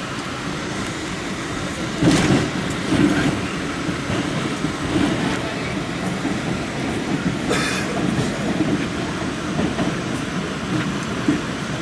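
Pullman-Standard R46 subway car running, heard from inside: a steady rumble, with wheels knocking over rail joints from about two seconds in and a brief high wheel squeal past the middle.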